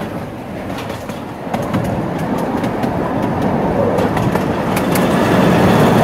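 Riding-scale miniature train rolling along its track: a steady rumble of wheels on rail with scattered clicks over the rail joints, growing louder from about a second and a half in.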